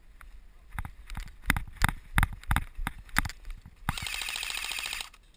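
Quick irregular thuds of running footsteps. About four seconds in, an airsoft electric gun fires a burst on full-auto, a rapid buzzing string of shots lasting about a second that cuts off sharply.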